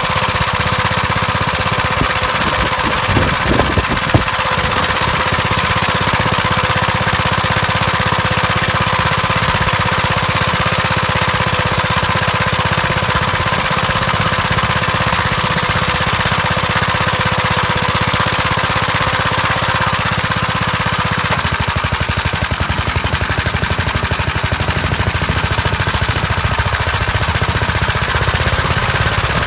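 1959 Gravely Model L walk-behind tractor's single-cylinder engine running steadily with a fast, even chug, with a few metal clanks about three to four seconds in. The engine's note changes about two-thirds of the way through.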